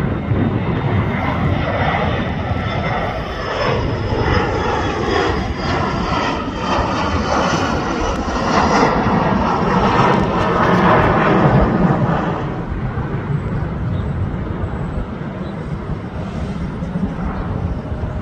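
A regional jet with rear-mounted engines passing overhead in a climb: a steady jet rush with a faint falling whine. It grows loudest around the middle, then fades as the plane moves away.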